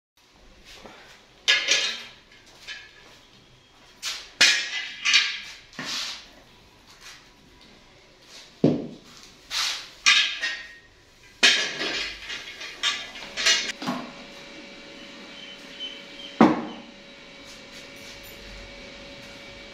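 Pots and metal utensils knocking and clattering in irregular sharp strikes, some ringing briefly and a few duller thuds among them. About two-thirds of the way in the knocking stops and a steady hum sets in.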